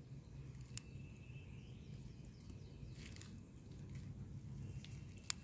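Faint outdoor background with a low steady rumble and a thin high tone that comes and goes, broken by a few sharp clicks, the loudest just before the end.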